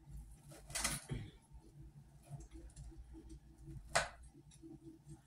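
Soft crackling of a fireplace video's fire sound playing from a TV, faint irregular pops over a low hum. A fork scrapes on a plate about a second in and clinks sharply on it about four seconds in.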